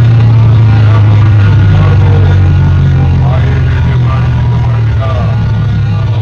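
Very loud music blasting from large DJ sound-box speaker rigs. A heavy, steady bass dominates, with a melody or voice line above it.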